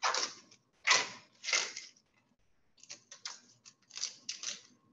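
Fresh kale leaves torn off their stems by hand: a series of short ripping sounds, three louder ones in the first two seconds, then a quicker run of fainter ones.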